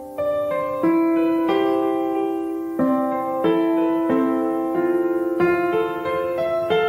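Background music: a solo piano playing a slow, gentle melody, notes struck about every half second to a second and left to ring.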